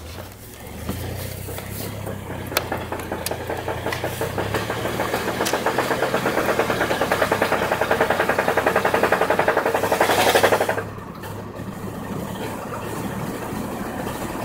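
2000 Chevy Blazer with a rapid rhythmic pulsing noise from the rear of the vehicle that speeds up and grows louder, then drops off suddenly about eleven seconds in, leaving a steadier running sound. The noise began after a highway drive and its cause is unknown.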